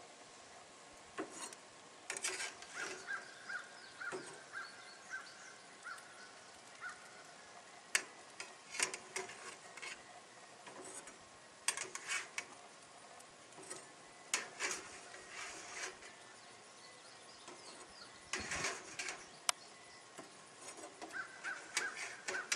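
Metal spatula scraping and tapping in an aluminium pan and against the smoker grate as marinated ribs are lifted onto the grill, in a series of short, irregular scrapes and clicks.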